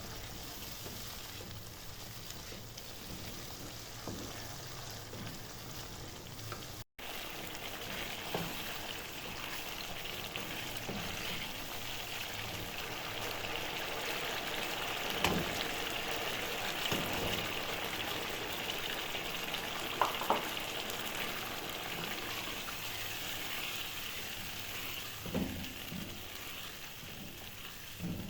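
Food frying in hot oil in a pot, a steady sizzle, with a few short knocks of a utensil against the pot. The sound cuts out for an instant about seven seconds in, and the sizzle is louder after that.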